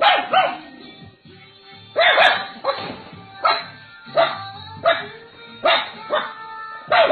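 A dog barking over and over in short, sharp barks, about a dozen in quick irregular runs, with a steady background of music.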